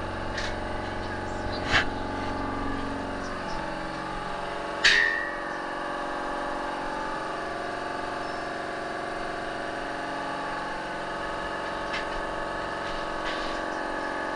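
Air compressor running steadily and noisily while it builds pressure, its note shifting slightly about three and a half seconds in. Two sharp metal knocks, about two and five seconds in, as steel stands are handled.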